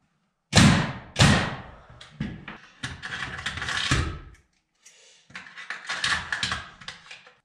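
Two loud knocks close together, then a circular saw cutting through a wooden board in two passes, the second starting a little past the middle.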